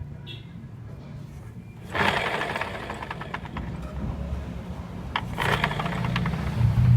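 Vespa 150ie 3V scooter running, its single-cylinder four-stroke engine and noisy gearbox with a worn bearing, before the bearing is replaced. Two harsher bursts come about two and five seconds in, and the sound grows louder near the end.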